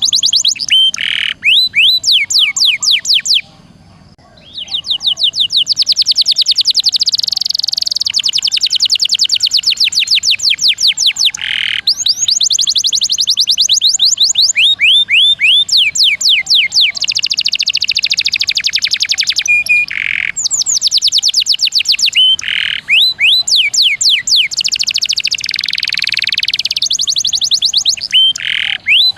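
Domestic canary singing fast, rolling trills: long runs of rapid, repeated high notes that each sweep downward, with a short break about three and a half seconds in.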